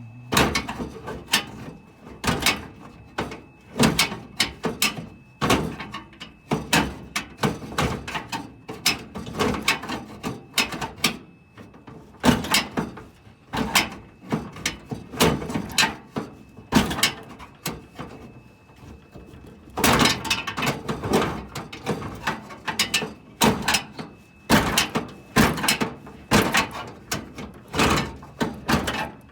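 Repeated metallic clanks, knocks and rattles in irregular clusters from hands-on work on a metal truck toolbox and its lock mechanism.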